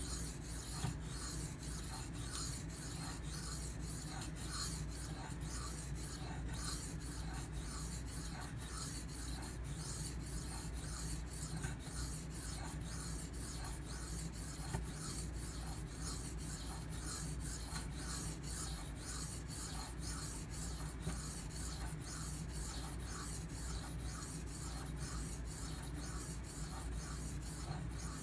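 Steel knife blade (ATS-34/154CM) being stroked back and forth across a wet Venev bonded diamond sharpening stone, a steady rasping scrape in evenly repeated strokes.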